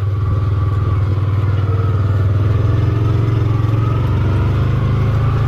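Engine of a farm vehicle running steadily as it drives, a low even hum.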